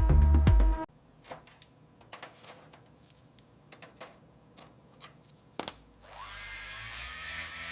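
Background music cuts off about a second in, followed by a few light taps and clicks and one sharper click. Then a small electric motor starts with a rising whine and runs on steadily.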